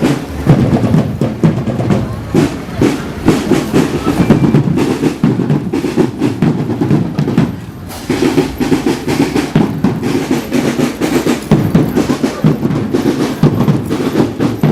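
Marching drum band playing a fast beat on snare drums and bass drums, with rolls; the playing dips briefly about eight seconds in, then resumes.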